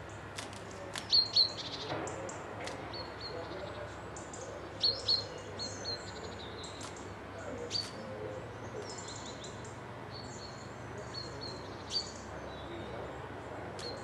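Small songbirds chirping and whistling in short, sharp, high-pitched clusters, the loudest about a second in, around five seconds in and once near the end, over a steady low hum.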